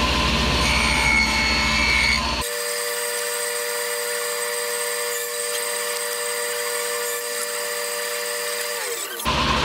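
Table saw with a dado blade running as it cuts a dado in a plywood shelf side. About two and a half seconds in the sound changes abruptly to a steadier motor whine, which sags slightly in pitch near the end.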